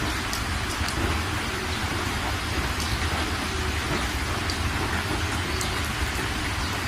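Steady rain falling, an even hiss with a low rumble underneath and scattered sharper drop ticks.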